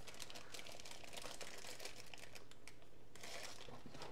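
Thin clear plastic bag crinkling in the hands as a pair of glasses is slid out of it: a rapid run of small crackles, with a louder rustle a little after three seconds in.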